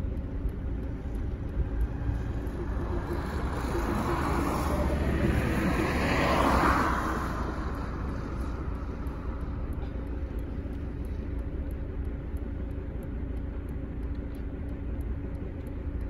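A road vehicle passing, its noise swelling to the loudest point about six or seven seconds in and then fading, over a steady low rumble of wind on the microphone.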